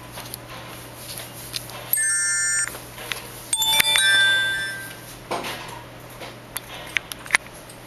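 Electronic tones from a mobile phone's speaker: a short flat tone about two seconds in, then a bell-like chime that rings and fades about a second later, with scattered light clicks.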